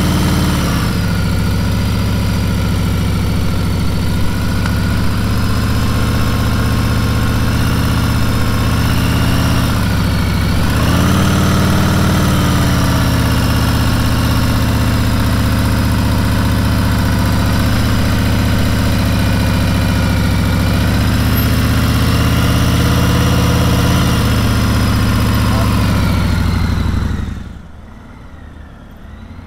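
Harley-Davidson Road Glide CVO's V-twin engine running at a steady fast idle near 2000 rpm, clutch slipped in its friction zone against the rear brake to creep along at walking pace. The revs sag briefly about ten seconds in and pick up again. Near the end the sound drops suddenly to a much fainter engine.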